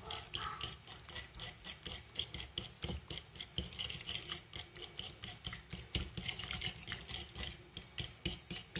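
A utensil scraping and knocking against a glass bowl in quick, repeated strokes as natural yogurt and soft cheese are stirred together into a creamy mixture.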